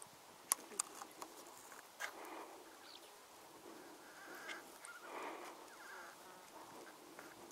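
Faint outdoor background sound, with a few sharp clicks about half a second to one second in and another at about two seconds.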